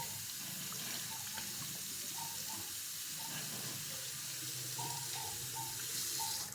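Tap water running steadily into a small plastic water tank, filling it for mopping, with light gurgling as it fills. The flow cuts off sharply at the end.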